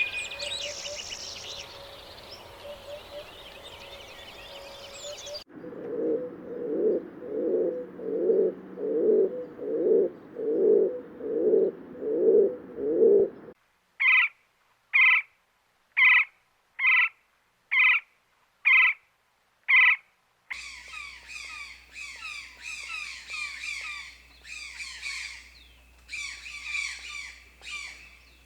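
A run of separate animal-call recordings spliced together, mostly birds. First comes mixed bird chirping. Then a low call repeats about once a second, followed by seven evenly spaced higher calls with dead silence between them. Near the end, many birds chatter and chirp at once.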